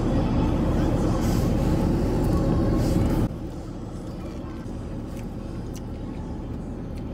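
Steady low rumble of a car idling, heard from inside the cabin. About three seconds in it drops suddenly to a much quieter background hum with a few faint clicks.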